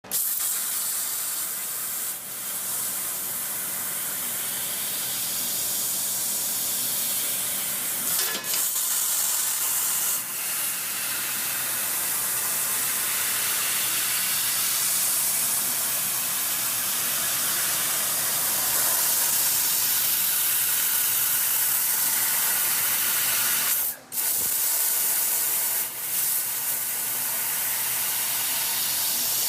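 Fiber laser cutting machine running, its assist gas hissing steadily through the cutting nozzle. The hiss breaks off briefly a few times, most deeply about 24 seconds in, as the gas pauses between cuts.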